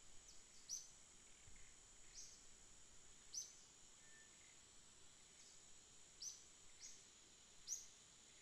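Near silence with a steady faint high hiss and about eight short, high chirps scattered through it.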